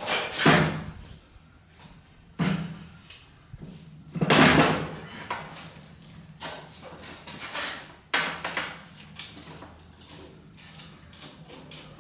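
A series of knocks and clunks from parts and tools being handled during hands-on work on an ATV, each dying away quickly, the loudest about four seconds in, over a faint steady low hum.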